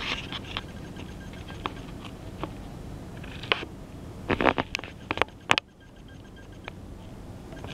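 Handling noise: scattered clicks and short rustles of paper being moved close to the microphone, with a louder burst of crackling rustles about four to five and a half seconds in.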